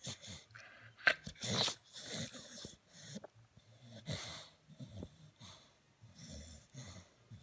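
Staffordshire bull terrier breathing noisily in short, irregular wheezy breaths while it lies on its back having its belly rubbed. A sharp click comes about a second in.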